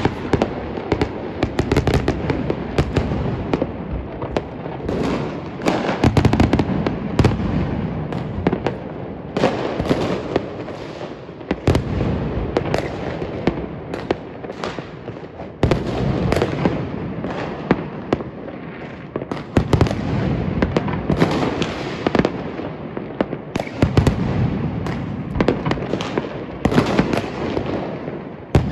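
Many fireworks going off at once: a continuous din of crackling and popping with loud, sharp bangs every second or so, some overlapping.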